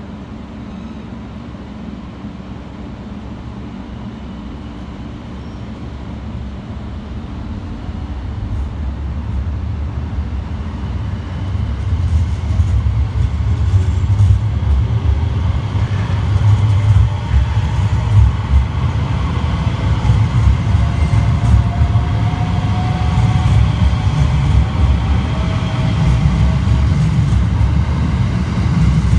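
JR 285 series Sunrise Express sleeper electric multiple unit pulling out of the station and passing close by. The low rumble of its wheels on the track grows steadily louder over the first half, and a whine from its drive rises in pitch as the train gathers speed.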